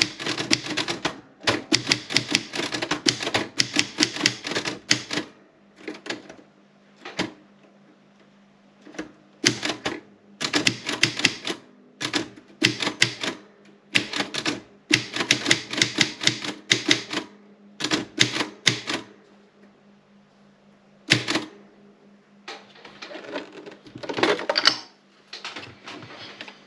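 Erika 30 manual typewriter being typed on: quick runs of key strikes in bursts with pauses between, a single strike a few seconds before the end, then a softer, busier rattle near the end. A faint steady hum sits under the pauses.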